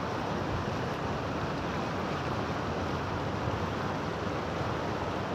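Steady rush of river water running over rocks in a shallow rapid.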